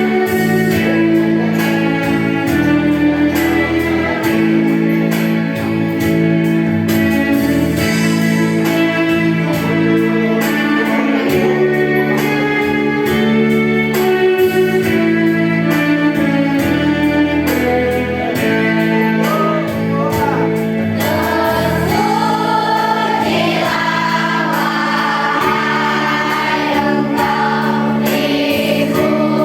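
Children's choir singing a slow hymn-like song over an instrumental accompaniment. The voices grow more prominent about two-thirds of the way through.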